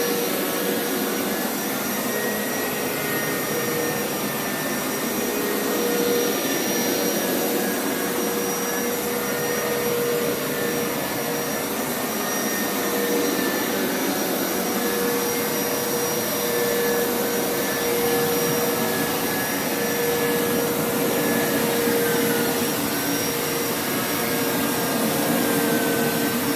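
Hoover Power Scrub Elite carpet washer running steadily: a suction motor's even rush with a steady hum and a slightly wavering whine. Its dirty-water tank is nearly full, but the float has not yet cut off the airflow.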